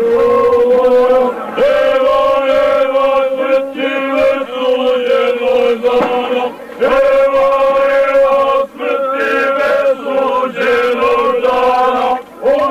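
A group of men singing together in loud, long held notes, like a chant, each line breaking off briefly before the next begins.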